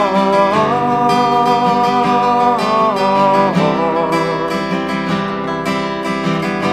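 Instrumental break in a song: acoustic guitar strumming steadily under a held lead melody line that bends in pitch over the first few seconds.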